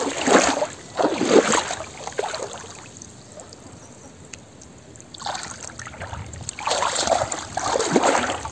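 Muddy shallow water sloshing and splashing as a person wades and hauls in a small fishing net, in uneven bursts with a quieter lull in the middle.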